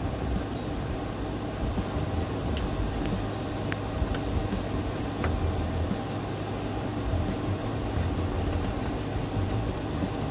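Steady low background rumble, with a few faint light ticks.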